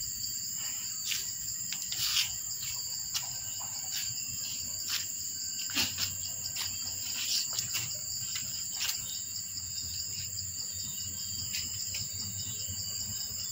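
Steady high-pitched chorus of insects, with scattered light clicks and taps over it, loudest about two seconds in and about six seconds in.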